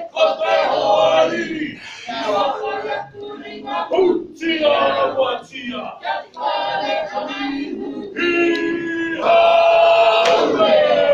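A group of men chanting loudly in unison, with shouted phrases, ending in two long held notes in the last few seconds.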